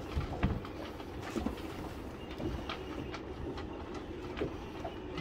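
Oil siphon hose being handled at the engine's oil filler: irregular light clicks and knocks over a steady low rumble.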